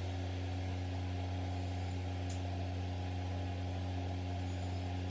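Steady low mechanical hum with a faint hiss over it, unchanging in pitch and level.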